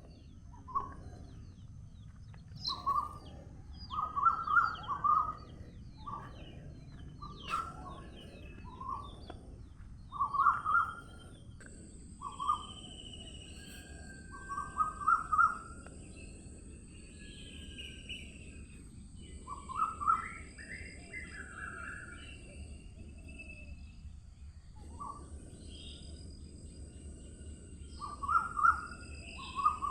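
Birds singing: one bird repeats a short phrase of a few quick notes every couple of seconds, with fainter, higher chirps from other birds between. A low, steady background noise runs underneath, and a thin high hiss comes in about a third of the way through.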